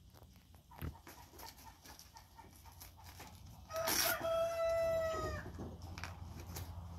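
A single long animal call about four seconds in, held for about a second and a half and dropping slightly in pitch as it ends. A sharp knock about a second in.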